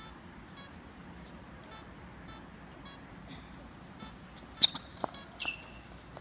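Tennis shoes squeaking sharply on a hard court two or three times as a player pushes off and changes direction, near the end. One squeal slides down in pitch. Under it, a faint high chirp repeats about twice a second.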